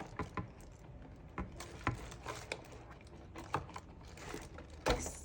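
Irregular small plastic clicks and taps as a toy doll's crown is worked and pried loose from its packaging, with a sharper click near the end.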